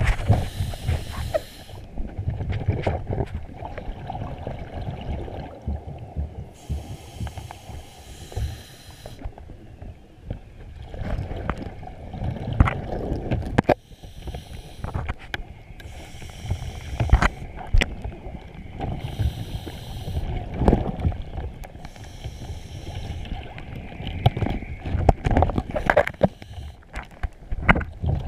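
Muffled underwater sound picked up by a camera in its housing during a scuba dive: a steady low rumble of water with scattered knocks on the housing, and a hissing burst of the diver's exhaled regulator bubbles every few seconds.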